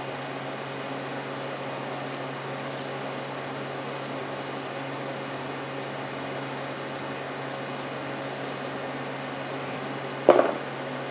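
Steady fan-like background hum, with one sharp knock and a brief ring near the end.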